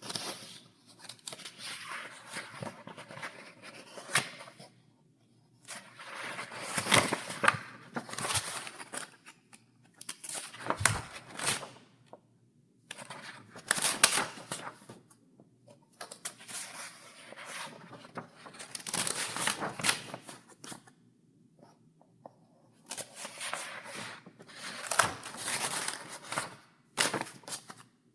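Paper pages in a file being turned one after another, each turn a crisp rustle lasting a second or two, with short quiet pauses between turns.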